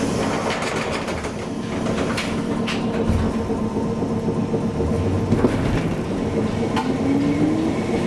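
Hankai Tramway streetcar running along the track: a steady rumble of wheels and motor hum, with several knocks from the wheels and a slightly rising whine near the end.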